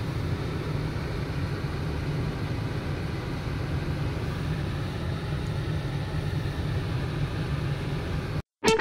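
Steady low rumble of a car driving, heard from inside the cabin. It cuts off suddenly near the end.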